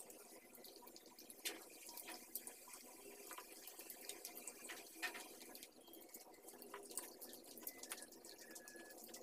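Faint eating sounds: fingers picking at grilled chicken wings in a styrofoam box while the eater chews, giving small irregular clicks and crackles over a low steady hiss.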